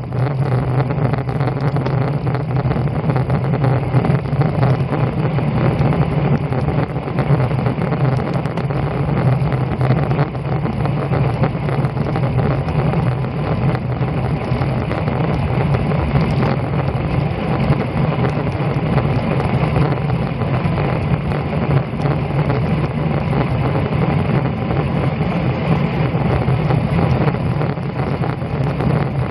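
Steady wind rushing over the microphone of a bicycle-mounted camera at road-cycling speed, about 20 to 26 mph, with a heavy low rumble and no break.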